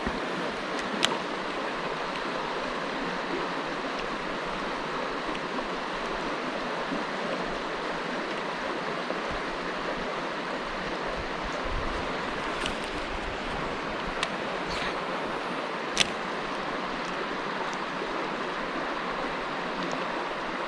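Mountain stream water rushing steadily over rocks, with a few short sharp clicks about a second in and again later on, the loudest near the end.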